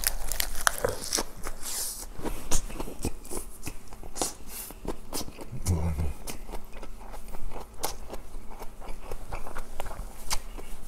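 Close-miked chewing of a big mouthful of lettuce wrap stuffed with spicy stir-fried pork and rice: wet, crunchy clicks and smacks.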